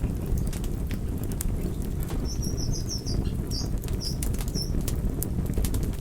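Campfire burning with a steady low rumble and scattered sharp crackles and pops. Near the middle, a quick run of short high-pitched chirps or squeaks sounds over the fire.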